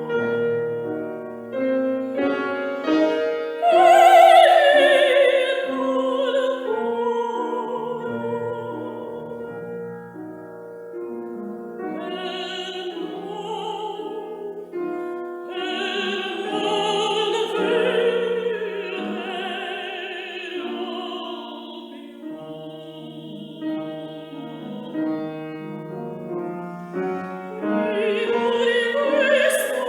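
Soprano singing an operatic aria with a wide vibrato, accompanied by piano.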